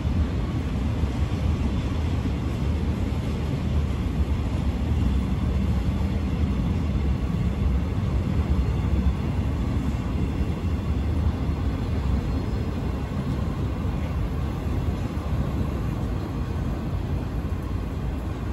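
Freight train of tank-container wagons rolling past at steady speed: a continuous low rumble of steel wheels on the rails, easing off slightly near the end as the wagons draw away.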